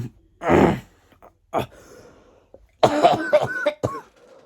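A boy coughing: one harsh cough about half a second in, then more voiced coughing and throat clearing in the second half. It is the lingering chest cough he has had for nearly a month.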